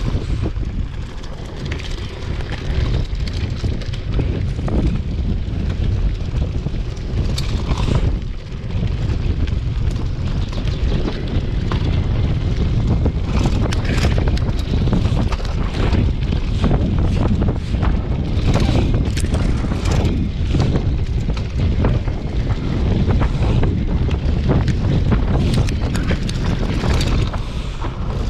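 Mountain bike riding fast down a rough dirt forest trail, with wind buffeting the microphone and the bike rattling and clattering over bumps and roots throughout.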